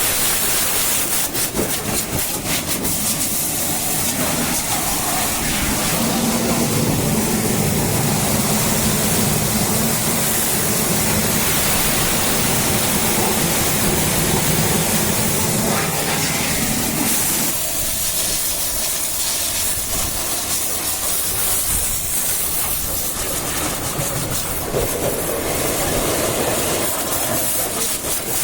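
High-pressure water spray hissing steadily over a machine running underneath, with a low hum that drops away about two-thirds of the way through.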